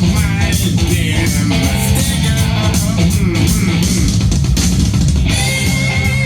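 Music played back from a cassette tape: a country-rock instrumental passage with guitar, bass and drums keeping a steady beat.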